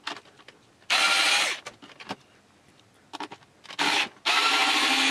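Handheld electric screwdriver whirring in short runs as it drives screws out of a stereo's top cover panel. It runs briefly about a second in, then gives a short blip and a longer run near the end, with small handling clicks between.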